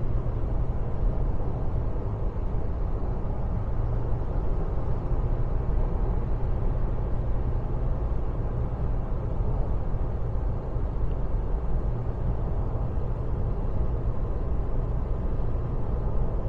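Steady low rumble of road and engine noise inside a Toyota Tacoma pickup's cab as it drives along.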